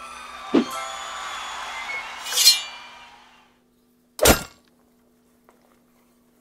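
Glassy clinking and tinkling that swells to a bright crash and fades out by about three and a half seconds, then one sharp crack about four seconds in.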